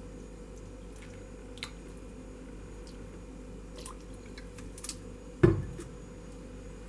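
Rose water tipped from a plastic bottle into a glass dish of poached apples in syrup: a few faint ticks and small wet sounds, then one loud thump about five and a half seconds in, over a steady low hum.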